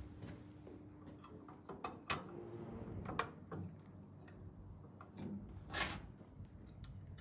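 Small hard parts being handled: scattered clicks and taps, with a louder scrape about six seconds in.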